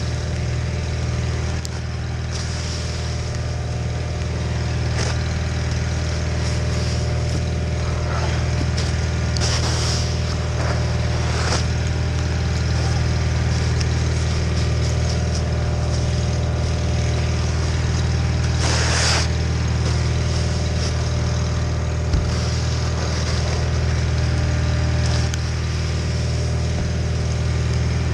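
John Deere 318 garden tractor's two-cylinder Onan engine running steadily at working speed while driving a Model 49 snowblower, with a few short rushes of noise about a third and two thirds of the way through.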